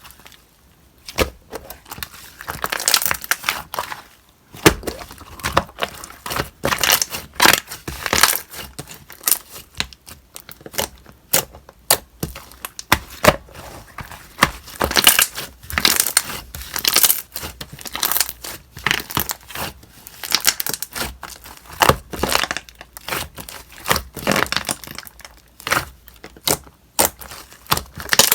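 Hands squishing, poking and stretching slime, giving irregular runs of sticky crackles, clicks and pops with brief pauses between.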